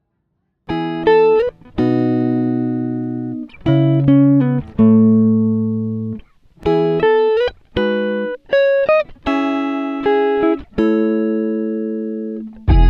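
Background music: a guitar plays a series of ringing chords, each one fading out before the next. A fuller arrangement with a deep bass comes in at the very end.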